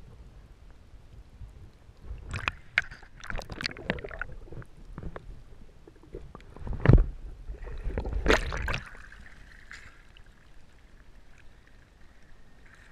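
Water sloshing and splashing as a small fish is held and let go under the surface, heard muffled with the microphone in the water. There are clusters of sharp knocks early on, one heavy thump about seven seconds in, and a louder splashy burst just after it.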